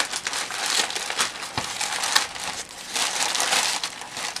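Plastic mail bag and its packing crinkling and rustling as hands tear it open and pull out the wrapped item inside, with sharp crackles throughout.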